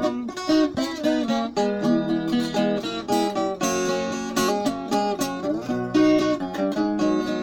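Viola caipira, the Brazilian ten-string folk guitar, playing an instrumental passage of plucked melody notes and strummed chords, with no singing.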